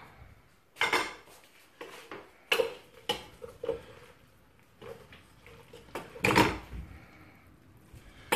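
Kitchen utensils clattering against a cooking pot and pans: a handful of sharp knocks and scrapes from a ladle and a pasta server as linguine is lifted out of the pot. Each knock has a brief metallic ring, and the loudest comes near the end.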